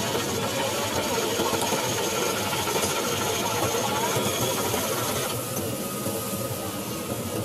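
Fishing boat's engine running steadily under a dense hiss of splashing water and flapping small fish in the net. The hiss drops away abruptly about five seconds in.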